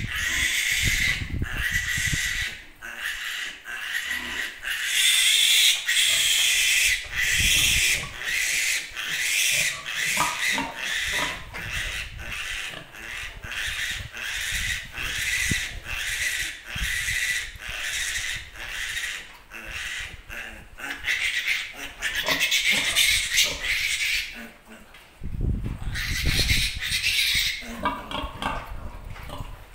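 Young piglet squealing over and over in loud, high-pitched cries while held and restrained for handling. The squeals stop about 25 seconds in, and a brief low rumble follows.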